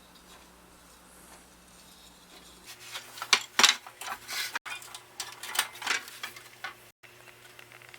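Metal band saw parts and hand tools clinking and clattering as the saw is taken apart, a quick run of sharp knocks starting a few seconds in over a faint steady hum. It breaks off abruptly twice.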